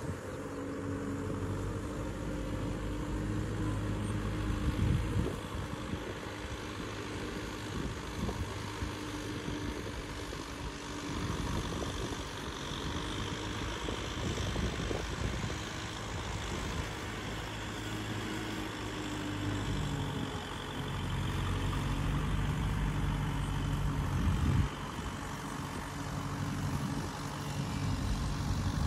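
Kubota M6040SU tractor's diesel engine running steadily at a distance while cultivating a flooded rice paddy, its note rising and falling slightly as it works.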